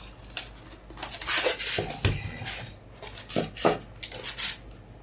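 Styrofoam packing insert being rubbed, scraped and pulled apart by hand, with a few short knocks, as a microphone is lifted out of it.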